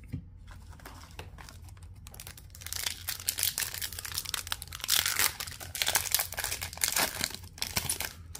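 A foil hockey-card pack wrapper being crinkled and torn open by hand, a dense crackling that starts about two and a half seconds in and stops just before the end.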